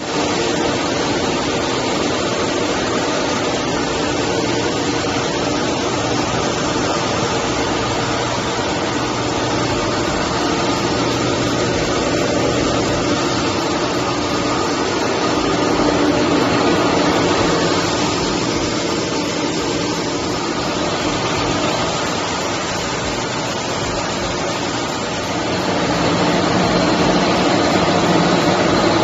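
Wire descaling and polishing machinery of a welding-wire production line running: a steady, loud mechanical drone with hiss and a few held tones, a little louder near the end.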